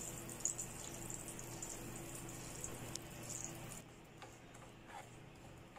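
Faint, steady sizzle of margarine melting in olive oil in a frying pan while it is stirred with a wooden spoon. A little over halfway in the sound drops abruptly quieter, leaving a few soft knocks of the wooden spoon stirring grated carrot in the pan.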